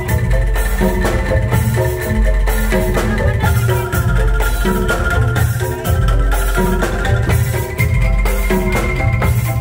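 Bamboo percussion ensemble playing: mallet-struck bamboo xylophones carry a fast melody of short wooden notes over a drum kit with cymbal and hand drums, with a steady deep bass underneath.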